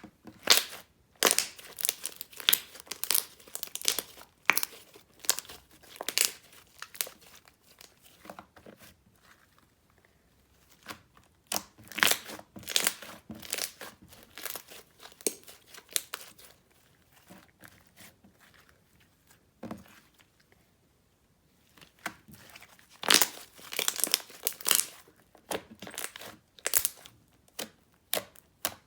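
Homemade shower-gel slime being squished and stretched by hand, giving clusters of sharp wet crackles and pops, with a couple of short pauses between handfuls.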